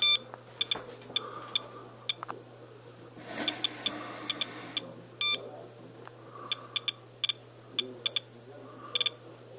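SOEKS radiation dosimeter chirping at irregular intervals, about two short high-pitched chirps a second, with a few longer beeps, one at the start and one about five seconds in. Each chirp is a detected count. The rate is high, which the owner takes for Fukushima fallout at about ten times background. A brief hiss of noise comes in the middle.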